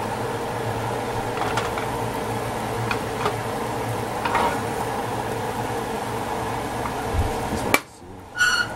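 Steady hiss and hum of an omelette cooking in a metal pan on a gas burner, with a few light metal clicks from the pan being handled. Near the end there is a sharp click, the sound drops out briefly, and then a short high tone sounds.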